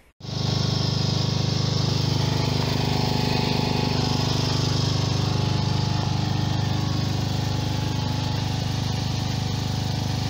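Bosch 4 kW generator's single-cylinder 11 hp Briggs & Stratton four-stroke engine running at a steady speed inside its sound-insulated hood, an even low drone heard up close.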